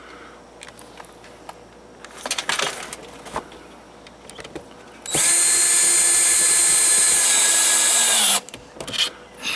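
Cordless drill running at a steady speed for about three seconds, its bit in a metal shelf bracket on a sheet-metal roof; the pitch sags slightly just before it stops. A few short clatters of handling come a couple of seconds before it starts.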